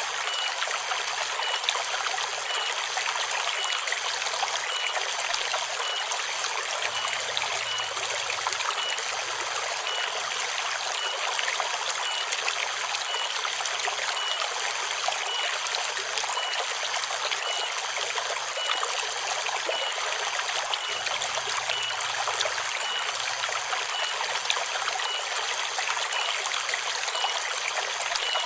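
River water flowing and trickling steadily, an even rush with no breaks. A faint high pip repeats at an even pace throughout.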